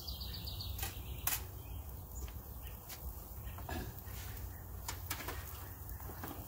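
Outdoor background: a steady low rumble with a few sharp clicks and knocks scattered through, and faint bird chirps.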